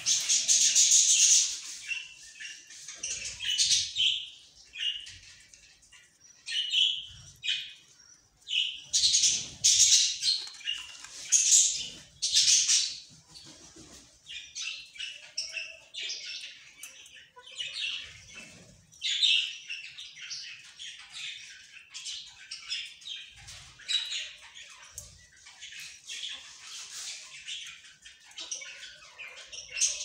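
Fischer's lovebirds chattering: rapid high-pitched chirps and squawks in uneven bursts, loudest in the first two seconds and again around ten to thirteen seconds in.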